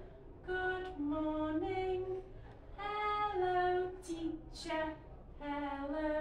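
Unaccompanied voices singing a slow, simple tune in held notes that step up and down, phrase by phrase, with short breaks between the phrases.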